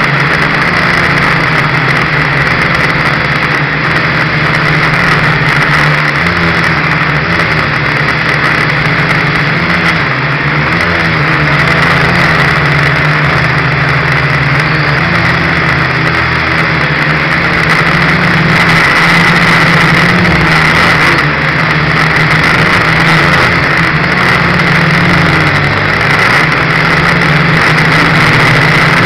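Dromida Ominus quadcopter's electric motors and propellers buzzing steadily, picked up close to the rotors by its onboard camera, the pitch wavering slightly as the throttle shifts.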